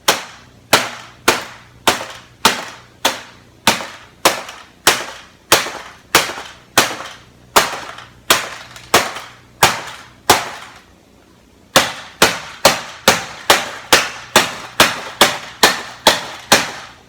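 A printer being broken open by repeated sharp blows, struck just under twice a second, pausing for about a second two-thirds of the way through, then resuming faster.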